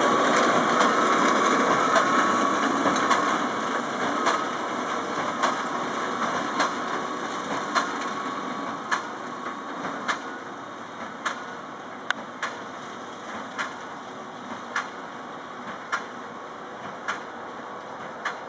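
Tractor and Claas Quadrant large square baler working straw: a steady engine-and-machinery drone with a sharp knock about every 1.2 seconds, the baler's plunger packing each charge of straw into the bale chamber. The drone grows steadily quieter as the outfit moves away.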